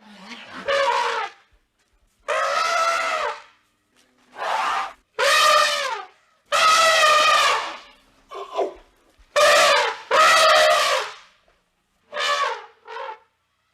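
Elephant trumpeting: a series of about ten loud, brassy blasts, some long and some short, several dropping in pitch as they end, with short pauses between them.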